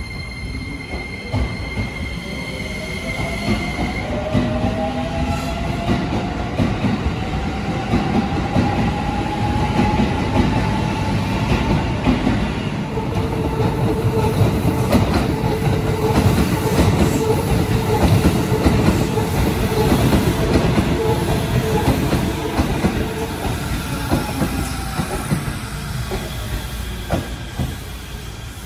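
Shin-Keisei Line electric commuter trains at the platform. A steady high whine fades after the first few seconds as one train pulls out. Another train runs in and slows into the station, its wheel-and-rail rumble loudest through the middle, with a whine that glides up and back down and then a long steady squeal that stops a few seconds before the end.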